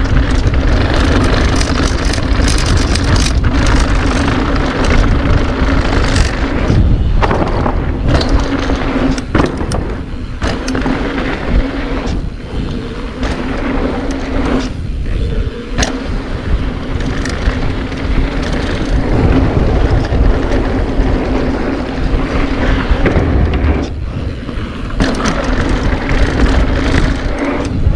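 Mountain bike riding down a dirt bike-park trail: wind rushing over the microphone and tyres rolling on dirt, with a steady buzzing hum and several short drops in level.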